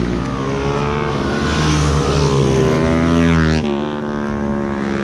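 Motorcycle engines running as bikes ride past through a bend. The nearest bike's note climbs and then drops suddenly about three and a half seconds in as it goes by, leaving a lower steady engine note.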